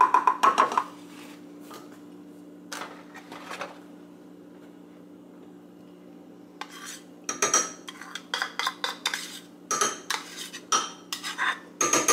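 Spatula scraping yogurt out of a plastic tub and knocking against the tub and a glass measuring cup. A run of rapid taps opens it, then a quiet stretch over a steady low hum, then scattered clicks and scrapes through the second half.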